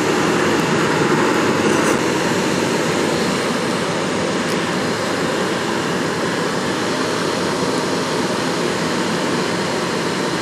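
Makeshift roof-tile furnace fire roaring steadily as a hair dryer blasts air into it, with a faint steady whine under the roar.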